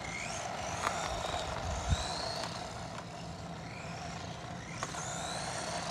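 Haiboxing 18859E 1/18-scale RC truck running on asphalt: its 390 brushed motor and drivetrain whine steadily under throttle, with a single thump about two seconds in.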